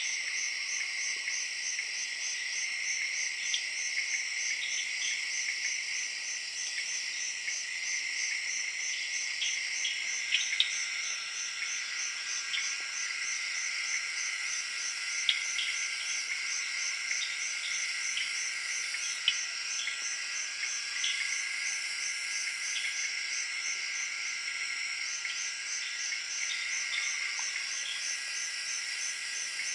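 Tropical jungle at night: a dense chorus of crickets and tree frogs, with continuous high, pulsing trills and short, sharp frog calls popping out irregularly over the top.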